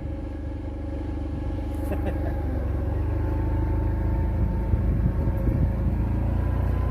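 A vehicle engine running steadily with a low hum, growing gradually louder.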